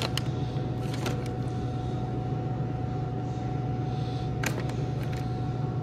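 Steady low machine hum with a faint steady whine over it, the running of a shop's refrigerated display cases. There are a few light clicks and crinkles of plastic packaging being handled near the start, and a couple more near the end.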